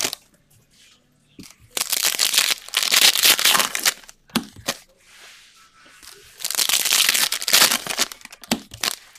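Foil trading-card pack wrapper being torn open and crinkled by hand, in two bursts of crackling about two seconds and six and a half seconds in.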